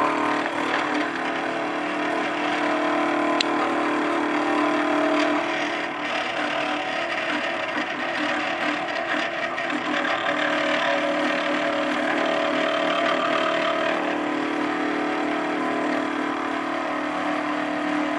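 NEMA 17 stepper motor whining steadily as it drives a 3D-printed plastic spur gear reducer and thrust-bearing base loaded with a 1 kg weight. A light click about three seconds in.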